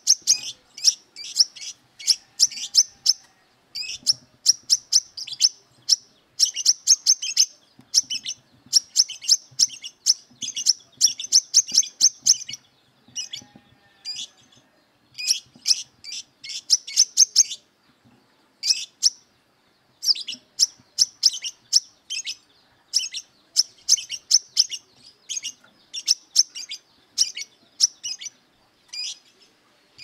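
Male brown-throated sunbird singing a fast, sharp, chattering song in repeated bursts of about a second, with short pauses and one longer pause of about a second past the middle. It is the vigorous aggressive song that keepers call 'beset'.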